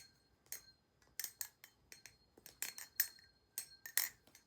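Balisong (butterfly knife) being flipped: the Prysma V1 speed-channel handles and Kraken V3 blade clack and clink together in quick, irregular runs of sharp metallic clicks, a few with a short ring.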